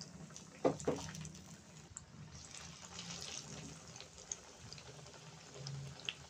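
Breaded vegetable patties shallow-frying in hot oil in a frying pan, sizzling and crackling steadily, with two knocks about a second in.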